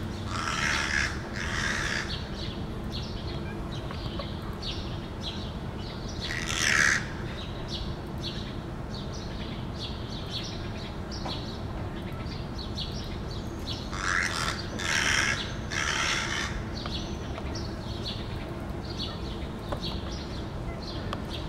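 Crows cawing in short runs: two harsh caws about a second in, one around seven seconds, and three more near the middle-to-late part. Small birds chirp briefly and steadily throughout.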